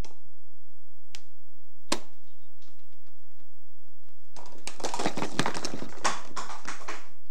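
Two light clicks, then a pyramid of plastic speed-stacking cups knocked over, clattering and tumbling across a tabletop for about two and a half seconds.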